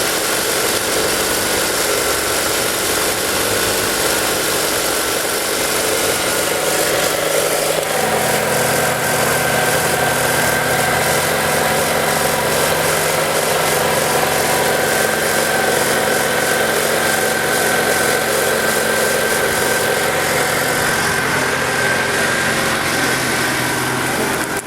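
Ford Lynx engine idling steadily, running now that its crank sensor signal is restored. About eight seconds in, the sound changes and a fuller, steady low hum joins the idle.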